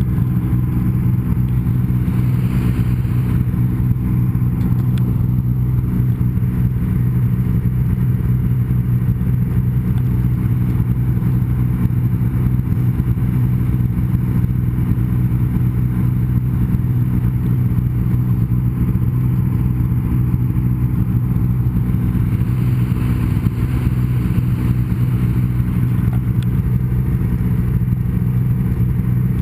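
Snowmobile engine running steadily while riding, a loud low drone that holds an even pitch.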